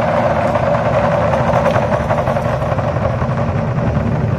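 A row of large barrel drums beaten together by a drum troupe in a fast, continuous roll, a dense steady rumble of rapid strokes.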